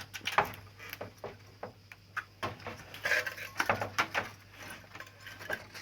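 Irregular plastic clicks and knocks of a split air conditioner's indoor-unit parts being handled and fitted back into place, a few of them sharper with a short ring.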